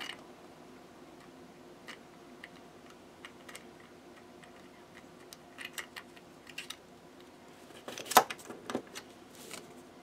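3D-printed plastic lock parts clicking and tapping as the tumbler discs are fitted back onto the lock's shaft: scattered irregular clicks, the loudest a sharp click about eight seconds in.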